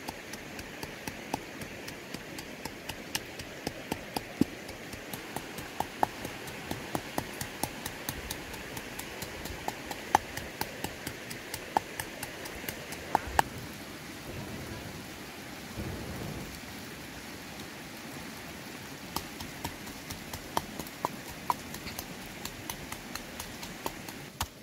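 Wooden pestle pounding chillies and salt in a small mortar: sharp knocks, irregular, about one to three a second, thinning out for a few seconds partway through.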